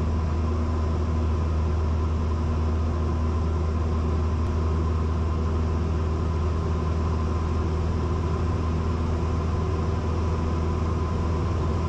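Cessna 172's piston engine and propeller droning steadily at pattern power, about 2,100 RPM, in level flight, heard from inside the cabin.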